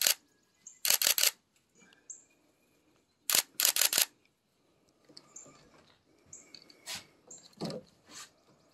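Camera shutter firing in quick bursts of several rapid clicks, three bursts in the first four seconds, as the catfish is photographed. Fainter scattered clicks follow later.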